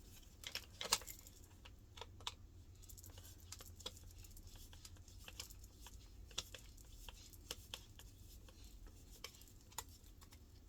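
Faint, irregular small clicks and taps of a part being handled and fitted into place on a washing machine's drain pump mount, the loudest about a second in.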